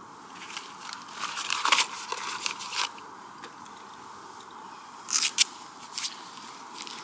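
Irregular crunching and rustling handling noises, with two sharp clicks just after five seconds in.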